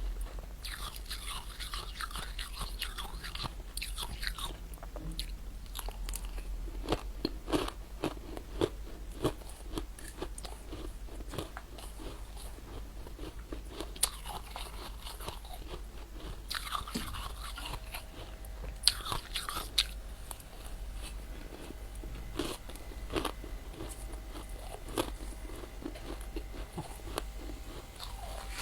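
A person biting and chewing freezer frost ice, with many sharp crunches in irregular clusters, the loudest around the middle and again after about two thirds of the way through.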